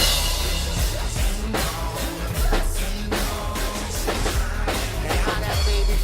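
Acoustic drum kit played along to a recorded song, with kick, snare and cymbals over a heavy bass line; a cymbal crash rings out at the start.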